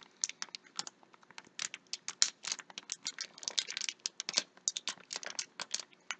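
Small plastic Shopkins blind-bag packet crinkling and crackling in a child's hands as she works it open, a continuous irregular patter of sharp little crackles.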